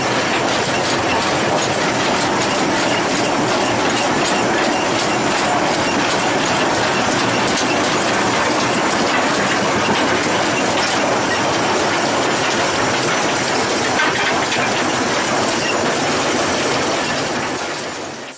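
Cab noise of the 2-6-0 steam locomotive "Norwegian" under way: a steady clatter of the wheels over the rails mixed with hissing steam. The sound fades out sharply near the end.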